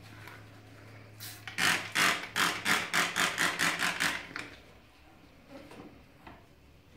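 Trigger spray bottle of disinfectant pumped rapidly about a dozen times, a quick run of short hissing sprays at about four a second, starting about a second in and stopping after about three seconds.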